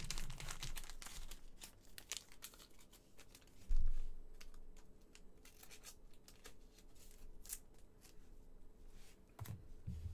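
Plastic card sleeve crinkling and scratching as a trading card is handled and slid into it, with a dull knock about four seconds in.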